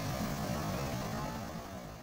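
Surf breaking on a rocky shore, a steady rushing noise with low wind rumble, fading down near the end.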